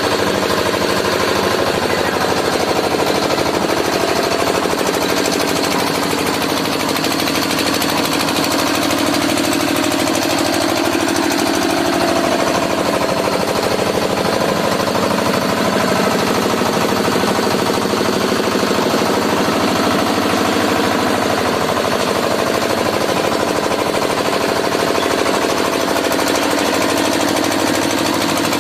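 Concrete mixer machine running, its engine chugging steadily and loudly with a fast, even knocking beat.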